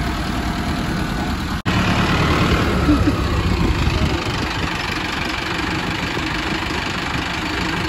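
Mahindra Arjun Novo 605 DI-i tractor's diesel engine running steadily at low revs while the tractor creeps forward in low gear. The sound cuts out for an instant about one and a half seconds in.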